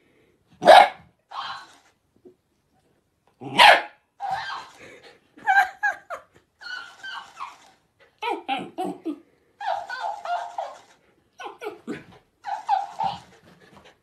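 A puppy barking: two loud, sharp barks about three seconds apart, followed by a run of shorter, higher yaps and squeals.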